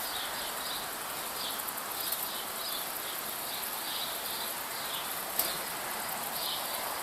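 Outdoor ambience of a steady high insect buzz with short high chirps repeating irregularly through it, and a single sharp click about five and a half seconds in.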